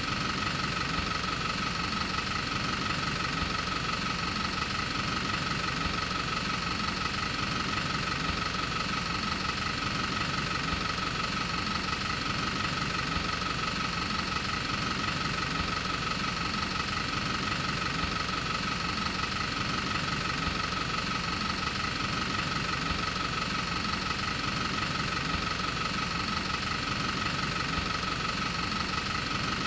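Film projector running: a fast, steady mechanical clatter with a constant motor whine.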